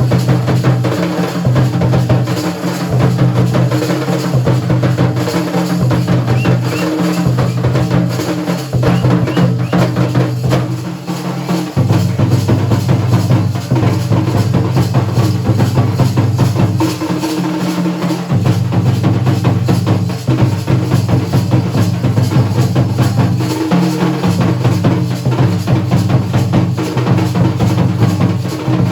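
Dhol and nagada drums played in a fast, unbroken rhythm of dense strokes, with deep drum tones shifting pattern every few seconds.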